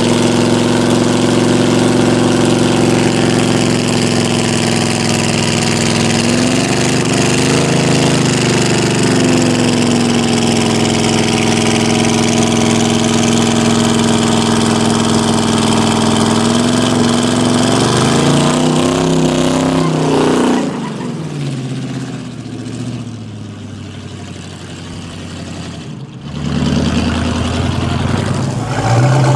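V8 muscle car doing a burnout: engine held at high, steady revs over a broad hiss of spinning tyres, the revs sagging and recovering twice. About two-thirds through, the revs drop off to a quieter, lower running; after a brief break, the engine picks up again near the end.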